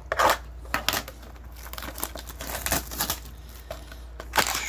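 Plastic wrapping being torn and crinkled while opening a box of trading cards, in a run of irregular crackles.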